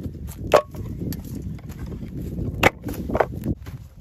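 A blade chopping into a small log: several sharp knocks, the loudest about half a second in and again near two and a half seconds in, over a low steady rustle.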